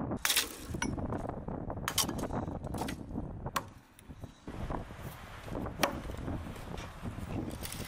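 Dry firewood branches and twigs being handled and broken: several sharp cracks and knocks over a rustle of sticks.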